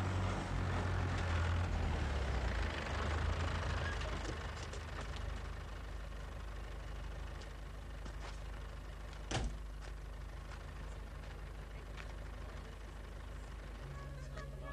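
Tractor's diesel engine running under way, then settling to a quieter, steady run about four seconds in. A single sharp clunk of the cab door comes about nine seconds in.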